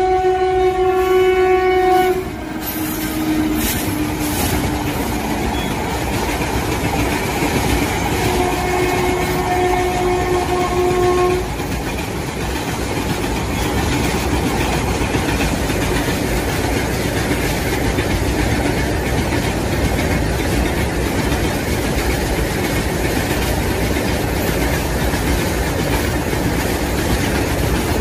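Train horn blowing until about two seconds in, then again for about three seconds from eight seconds in, over the steady rumble and clatter of a passing train's wheels on the rails.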